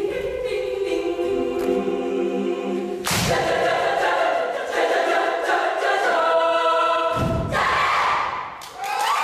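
Choir singing a cappella in held, stacked chords, with two sharp percussive hits about three seconds in and about seven seconds in. The singing breaks off briefly near the end.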